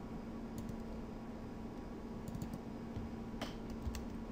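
A few scattered computer keyboard keystrokes and mouse clicks over a steady low electrical hum.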